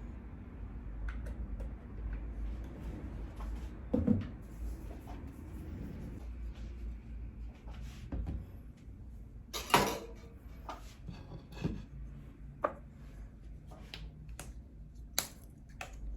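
Kitchen utensils and containers being handled: scattered knocks and clicks, with a louder clatter about four seconds in and the loudest about ten seconds in, over a low steady hum.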